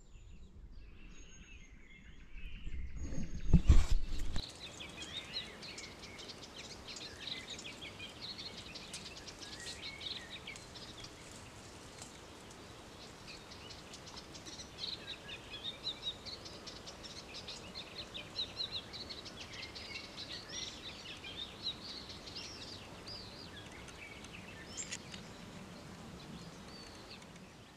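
Small birds chirping and singing in quick short notes over a steady outdoor hiss. In the first four seconds a low rumble on the microphone grows loud and then stops abruptly.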